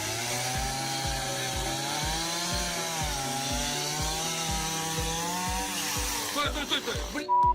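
A chainsaw running, its pitch wavering up and down, over a steady beat of about three low thumps a second. It cuts off abruptly near the end.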